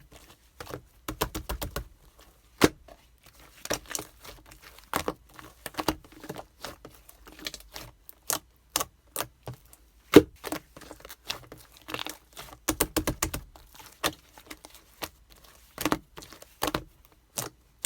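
Slime being squished and mixed by hand, making an irregular run of sticky clicks and pops, some in quick clusters of several.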